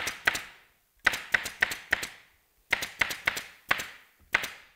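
A pneumatic staple gun fires staples through canvas into a wooden frame in quick runs of several sharp shots, about four a second, as the fabric is fastened to the flat.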